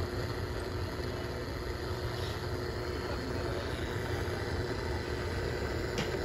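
A GE 7-4664A clock radio's speaker giving out steady static, with no station tuned and its dial at the top end of the band. A faint click near the end.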